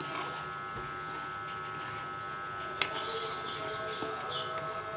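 Spatula stirring and scraping gram flour as it dry-roasts in a metal kadai, over a steady background hum, with one sharp tap on the pan about three seconds in.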